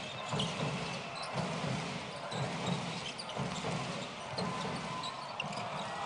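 Basketball dribbled on a hardwood court, about two bounces a second, over the steady noise of the arena crowd.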